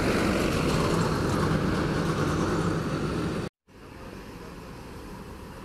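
Diesel engine of a Marcopolo G7 coach on a Mercedes-Benz chassis running steadily as the coach drives off, with a steady low hum under the noise. About three and a half seconds in it cuts off suddenly, leaving quieter background noise.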